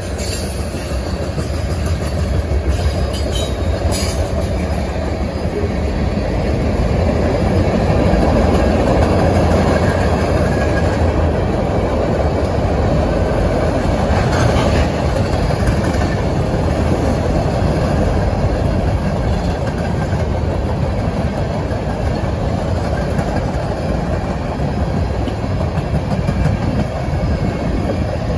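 Freight train cars rolling past, tank cars and then open-top gondolas, with a steady rumble of steel wheels on the rails.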